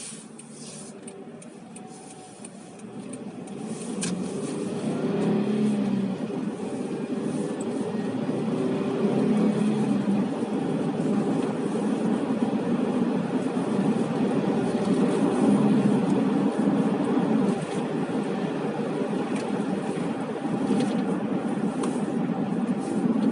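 Car engine and road noise heard from inside a moving car, growing louder about four seconds in as the car picks up speed, then holding steady.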